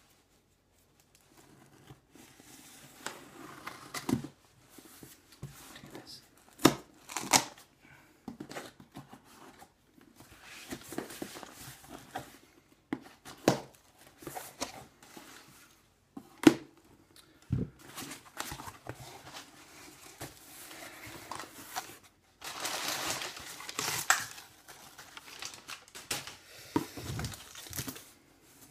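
Cardboard shipping box being opened by hand: irregular scraping and rustling of cardboard and packing, with scattered sharp knocks and a longer tearing rustle about two-thirds of the way through.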